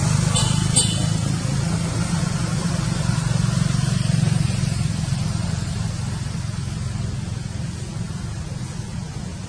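A low, steady motor rumble, like a passing motor vehicle, slowly fading away, with two short high squeaks close together near the start.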